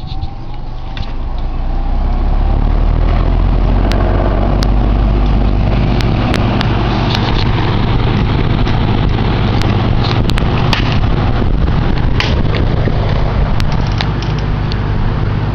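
Berns Air King three-blade box fan running on its high speed. It comes up to speed over the first couple of seconds, then holds a loud, steady low hum and rumble with scattered rattling clicks, from blades the owner thinks are off balance, which make the fan shake. Its air stream buffets the microphone.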